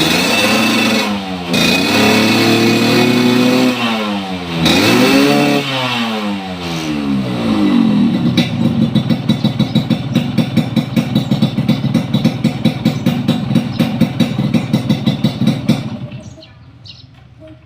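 Yamaha RX-King's 135 cc two-stroke single through a stainless underbelly expansion-chamber exhaust, blipped several times so the pitch rises and falls, then settling into a fast, pulsing idle with a crisp, rattly edge. The sound drops away briefly near the end.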